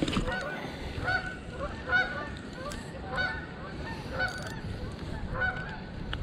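Geese honking over and over, short calls coming one or two a second.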